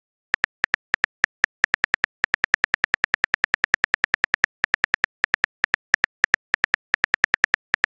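Smartphone keyboard key-click sounds, one short tick per letter as a message is typed, at about eight a second with a few brief pauses.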